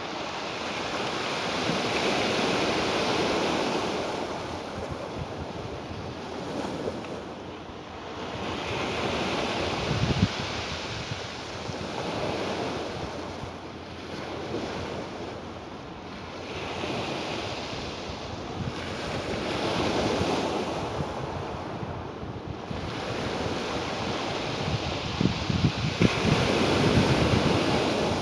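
Ocean waves breaking and washing in, a steady rush that swells and fades every several seconds, with a few sharper crashes near the middle and toward the end.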